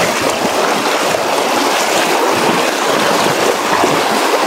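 Swift river current rushing loudly and steadily, strong enough to push at people wading through it.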